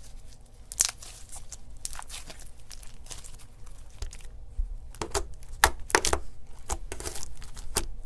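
Slime being played with, making irregular crackling pops and clicks, sparse at first and then denser and louder in the second half.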